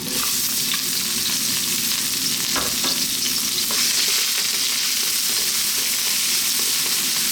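Chopped ginger, garlic and onion sizzling in sunflower oil in a large wok on full heat, a steady hiss with a few short knocks.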